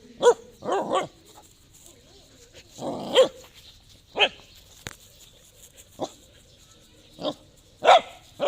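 Dog barking in short, sharp barks at irregular gaps, two or three in quick succession about a second in, at a snake it has found.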